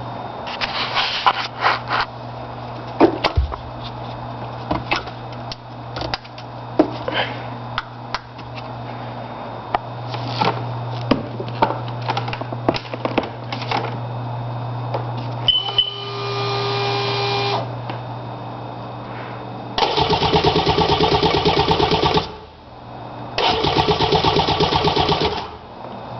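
Starter motor cranking a Sea-Doo GTX DI's two-stroke engine twice, about two seconds each time, with a fast even chug, cutting off each time without the engine firing. Before that come scattered clicks and knocks over a steady hum.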